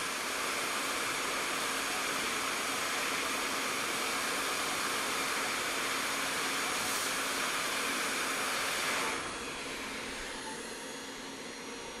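Hot air rework station blowing at 40% airflow, a steady hiss that drops to a quieter hiss about nine seconds in.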